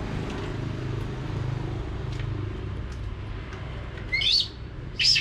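Two short high-pitched squeaks, the first sweeping upward, from a frightened baby monkey about four and five seconds in, over a steady low hum.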